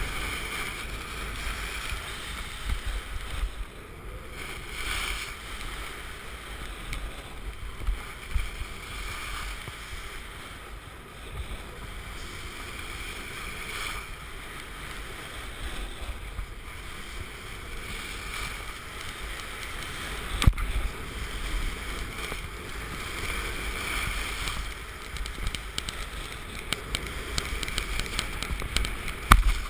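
Skis or a snowboard sliding and scraping over packed snow, with wind rumbling on the GoPro HD's microphone. Two sharp knocks stand out, one about two-thirds of the way through and one just before the end.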